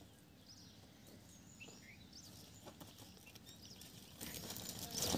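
Quiet outdoor ambience with faint, high bird chirps; about four seconds in, a louder rustling sets in with a few clicks, as a plastic sack is handled on concrete.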